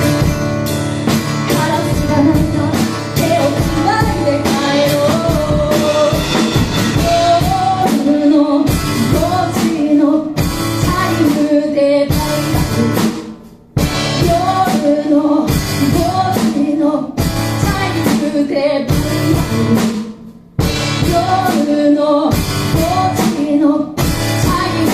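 Live rock song: a woman singing over guitar and drum kit. The band stops dead for a moment twice, about halfway through and again about two-thirds in, then comes straight back in.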